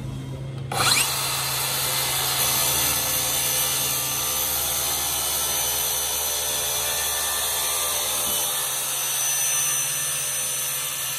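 Makita SP001G 40V cordless plunge saw running on its guide rail. About a second in, the blade bites into the wooden panel and a steady cutting sound follows as the saw is pushed along the rail.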